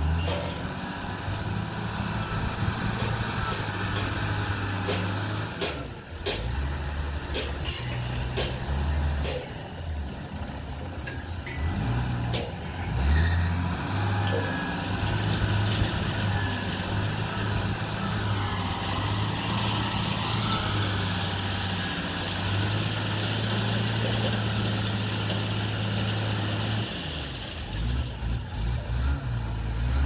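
Diesel engine of a wheel loader running, its speed rising and falling as it works under load, with a few sharp knocks in the first several seconds.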